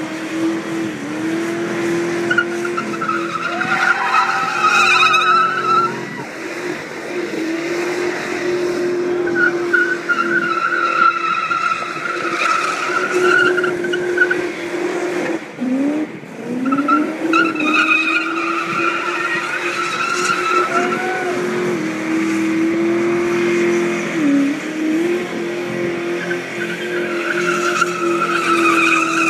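Ford XA Falcon coupe doing a burnout: the engine is held at high revs with the rear tyres spinning and squealing, and the revs dip briefly and climb back several times.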